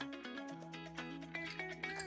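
Background music with a steady run of notes over a held bass line.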